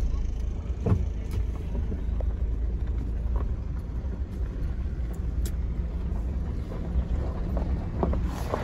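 Mahindra Thar's cabin while driving slowly over dry dirt and gravel: a steady low engine and tyre rumble, with a few small clicks scattered through it.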